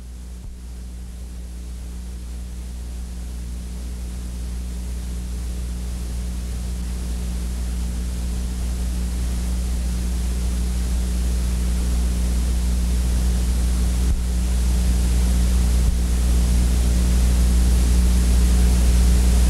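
Steady low electrical hum with hiss from an old videotape soundtrack, with no other sound, growing slowly louder.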